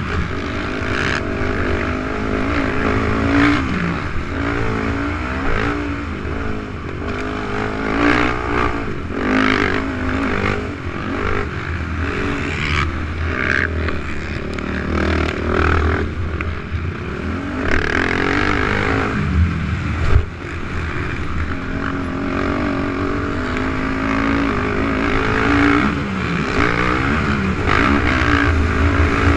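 450cc single-cylinder four-stroke race quad engine revving up and down hard, rising and falling again and again as the quad is ridden around a dirt track, heard from a camera mounted on the quad. A single sharp knock cuts through about two-thirds of the way in.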